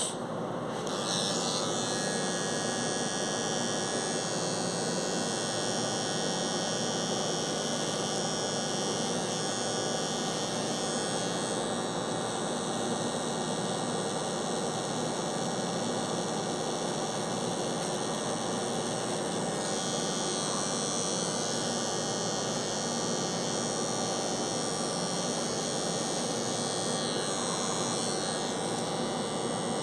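Electric hair clipper running with a steady hum as it cuts short hair around the ear and hairline, changing slightly in tone as the blade moves.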